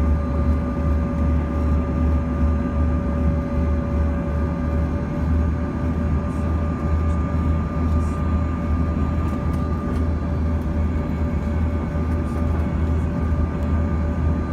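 Cabin noise inside a Bombardier CRJ-200 on approach: the steady drone of its rear-mounted General Electric CF34 turbofans over a deep airflow rumble, with a few steady whining tones.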